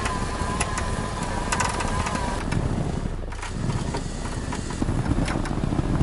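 Off-road SUV engine running steadily while a stuck vehicle is pulled out of deep snow on a tow rope, with a thin high whine over the first two seconds or so.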